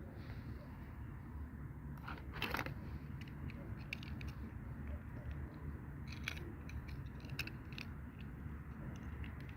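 Plastic toy packaging being handled during an unboxing: scattered small clicks and taps, with a louder crinkling rustle about two seconds in, over a steady low hum.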